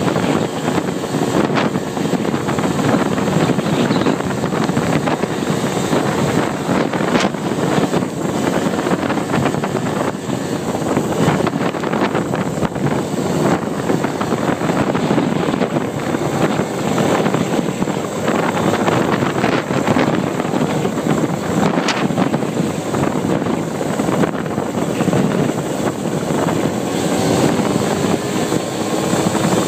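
ATV engine running as it rides along a road, with wind buffeting the microphone in a steady rush of noise.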